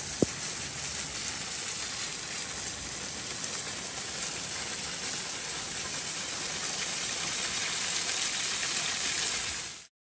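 Waterfall rushing: a steady, even hiss of falling water that cuts off suddenly near the end.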